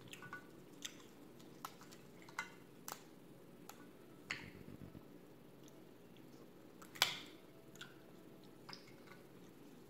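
Cooked crab-leg shells being cracked and picked apart by gloved hands: scattered sharp clicks and snaps with soft wet squishing, the loudest snap about seven seconds in.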